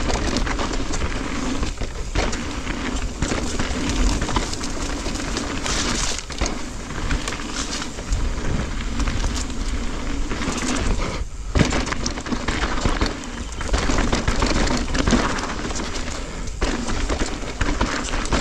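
Giant Reign E+ electric mountain bike clattering down a rocky trail: tyres rolling over and knocking against rocks, the frame and chain rattling, a continuous din broken by frequent sharp knocks.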